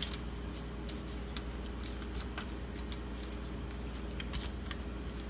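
Light scattered clicks and crinkles of aluminium foil as marinated chicken pieces are pushed into a foil-lined baking pan by hand, over a steady low hum.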